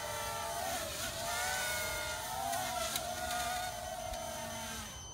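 Quadcopter's electric motors and propellers buzzing in flight, the pitch swelling and dipping with the throttle. It is flying on badly broken propellers, with hardly any prop left on it.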